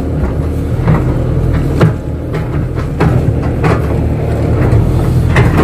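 Kato crawler excavator's diesel engine running steadily under work, with several sharp knocks spread through it.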